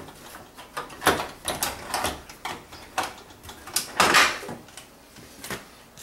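The plastic trim panel of a GE microwave door being pried off with a screwdriver, its clips snapping loose: a string of sharp plastic clicks and knocks, the loudest about four seconds in.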